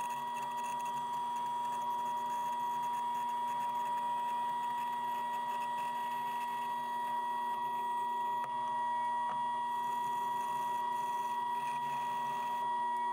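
Bandsaw running and cutting through a thick glued-up walnut-and-ash block, a steady machine whine with a constant high tone.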